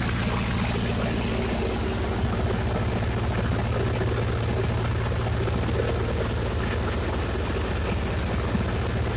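Gasoline engine of a Miller Big 20 welder running steadily at a fast idle. It is idling too high, well above its 1,200 RPM idle spec.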